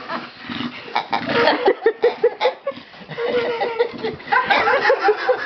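English bulldog making noises as she plays with a plush hedgehog toy: irregular rough sounds with scattered knocks at first, then a run of short pitched calls over the last couple of seconds.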